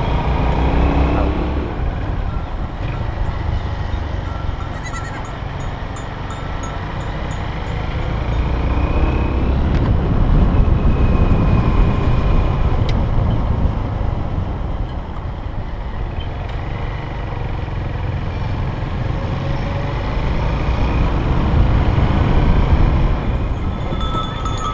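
Honda XR125 motorcycle running on the move, its engine mixed with wind rumble on the camera's microphone, the level swelling and easing.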